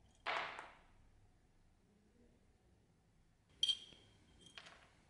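Small metal pieces clinking on a workbench: a short clatter just after the start, then a sharp clink with a brief high ringing, followed by a lighter tap.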